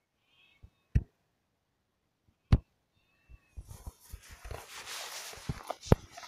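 Wind buffeting and rustling on a handheld camera's microphone, with three sharp handling knocks and a rising rustle of waterproof jacket fabric from about three and a half seconds in. Faint high wavering bird calls in the first second and again about three seconds in.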